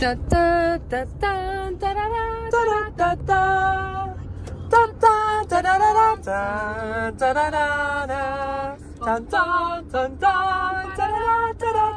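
A woman singing unaccompanied, long held notes with a wavering pitch, over the low steady drone of a moving car's cabin.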